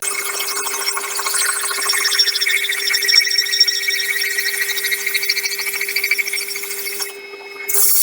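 Power drill running steadily with a water-cooled 38 mm hole-cutting bit grinding into a tea light stand. Near the end the grinding stops for about half a second while the motor keeps running, then comes back.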